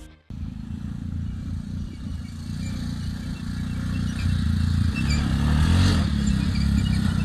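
Honda TRX 250EX quad's single-cylinder four-stroke engine running as it is ridden across grass, getting louder and changing pitch with the throttle from about four seconds in.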